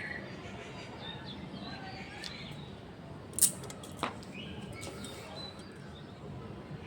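Faint bird chirps over quiet outdoor background noise, broken about three and a half seconds in by one short, sharp puff of air and a small click just after it.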